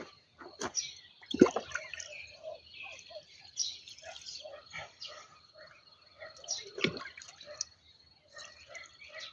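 Water splashing and dripping, with two louder splashes, one about a second and a half in and one near seven seconds.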